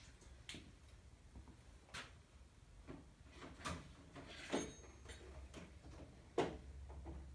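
Scattered light clicks and knocks of small metal hand tools being handled, the loudest a sharp knock a little past the middle and another near the end, over a faint steady hum.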